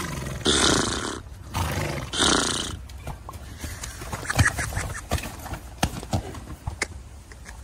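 A horse snorting twice, two short noisy blasts less than two seconds apart, followed by a few scattered soft thuds.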